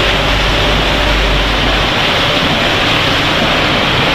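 Continuous snack-frying line running: a steady, loud rushing machine noise, with a low hum underneath that drops away about two seconds in.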